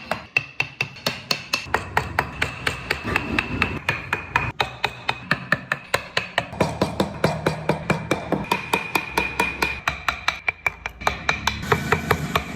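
Rapid, regular hammer strikes on a wood-carving tool, about four a second, steady throughout: a carver tapping a chisel into wood.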